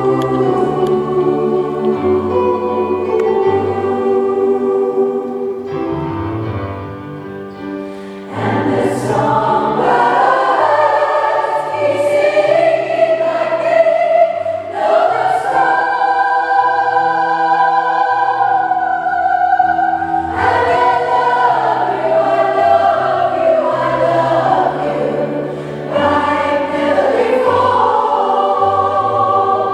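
A choir singing slow, sustained chords in harmony, growing fuller and louder about eight seconds in after a brief softer passage.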